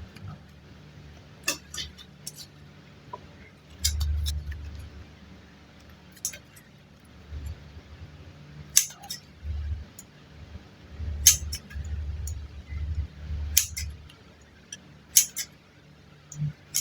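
Hands working super light clay close to the microphone: scattered sharp clicks and crackles every second or two, with soft dull thumps of the clay being pressed and handled in between.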